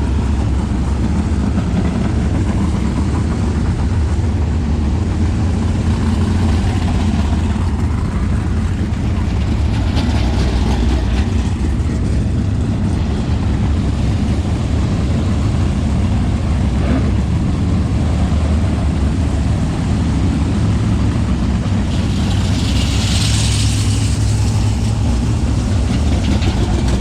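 Steady low rumble of a motor vehicle's engine idling or running slowly, with a short hissing noise near the end.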